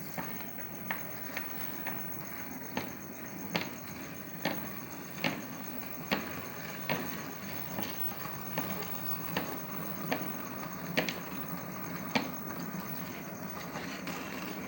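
Model railway train running on the layout, its wheels clicking over the rail joints at a regular beat of about one click every 0.8 s, over a steady low running hum.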